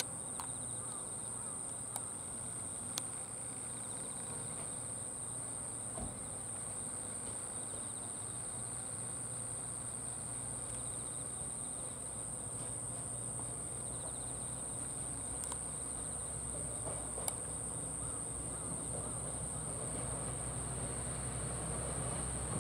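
Insects trilling in one steady, unbroken high-pitched tone. Underneath, the low hum of a diesel railcar engine grows louder toward the end.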